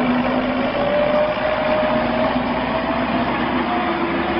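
Car engine running under load with a slowly rising note as a car is towed out of a river, amid water splashing.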